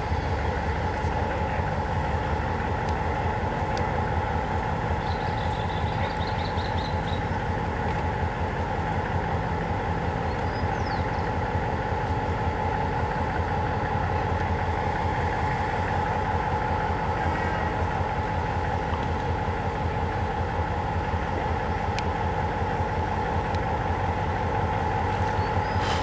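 GM G22 diesel-electric locomotive's EMD twelve-cylinder two-stroke engine running steadily at low power, a low pulsing throb with a steady high tone over it.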